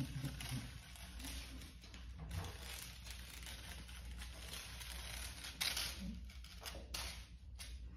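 Kittens playing with toys: soft rustling and crinkling, with a few light taps and scuffs, the clearest in the last few seconds.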